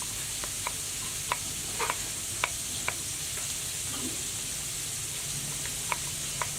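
Food frying in hot oil with a steady sizzle, and a utensil stirring it, clicking and scraping sharply against the pan at irregular moments.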